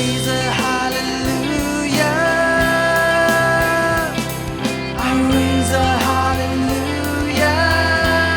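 Worship band music with a steady drum beat, bass and guitar, carrying long held notes between lines of the song.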